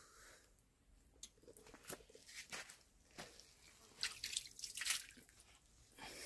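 A hand splashing in the still water of a stone stepwell pool: a run of small splashes and drips, loudest about four to five seconds in.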